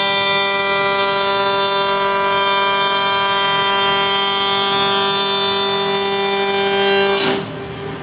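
CNC wood-machining centre's spindle and cutter milling a solid wood block: a loud, steady, high whine with many overtones. About seven seconds in the whine bends down in pitch and stops, leaving a quieter steady hiss.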